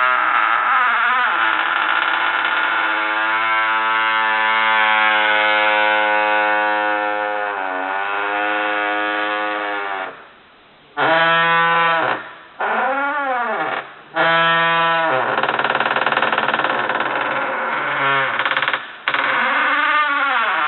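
Door hinge creaking as the door swings: long, loud, horn-like groans whose pitch holds and then bends up and down in arcs, with a few short breaks about halfway through and near the end.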